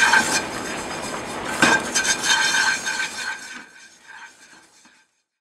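Wooden chopsticks scraping and stirring lemon-juice salt in a nonstick frying pan over low heat, drying it to a powder, with a couple of sharper scrapes; the sound fades away about three and a half seconds in.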